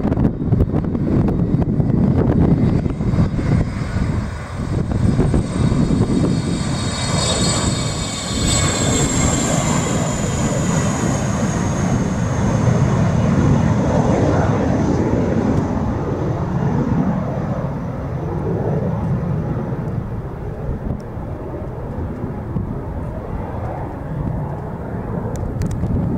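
Jet airliner's engines running loud, a deep rumble with a high whine that slides slowly down in pitch as the aircraft passes about seven seconds in.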